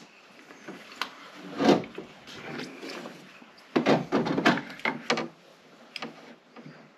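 Knocks and clatter from handling a jumper-cable clamp and a bulb on leads against a motorcycle's metal frame during a manual pre-charge. There is one knock about a second and a half in and a quick run of clattering about four to five seconds in.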